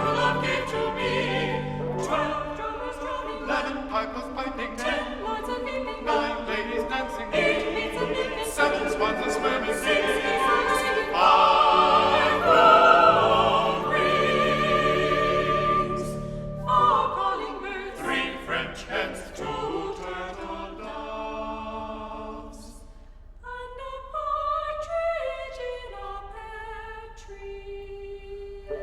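Recorded Christmas carol music: choir singing with orchestral accompaniment, loudest in the middle, then thinning to quieter single instrumental notes near the end.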